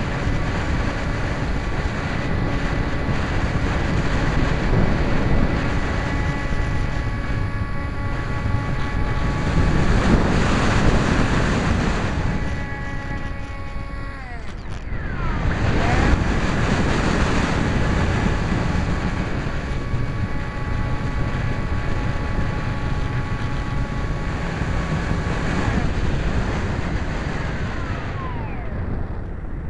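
SkySurfer RC foam glider's electric motor and pusher propeller whining at a steady pitch, picked up by a camera riding on the plane, with wind rushing over the microphone. About halfway through the whine drops in pitch and climbs back, and near the end it falls away again.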